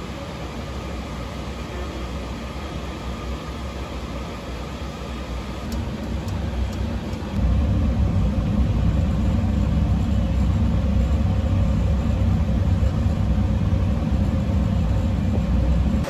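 Large commercial oil burner firing on a steam boiler: a steady low rumble of the flame that jumps louder about seven seconds in, with a few faint clicks just before.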